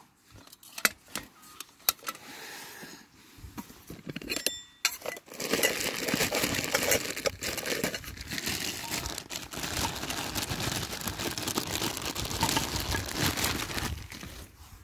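Aluminium Trangia 25 stove parts clicking and clinking as they are fitted together, with a brief metallic ring about four seconds in. Then about nine seconds of steady rustling and crinkling handling noise.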